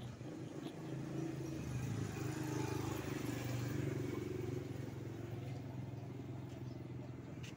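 A motor vehicle passing by: a steady low engine hum, with road noise that swells for a few seconds and then fades.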